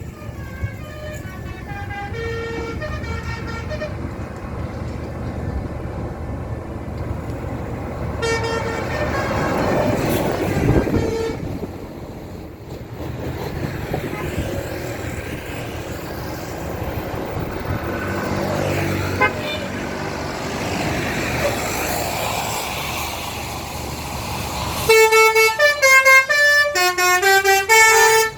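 A bus's basuri musical air horn playing a melody of quick stepping notes: in short phrases at the start and about eight seconds in, then loudly from about 25 seconds in. Between the phrases there is steady engine and road noise.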